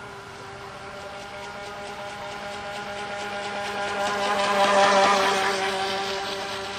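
Pro Boat Mini V radio-controlled deep-V boat's electric motor running at speed with a steady whine. It grows louder as the boat passes close, with a hiss of spray from the hull about five seconds in, then fades as it runs away.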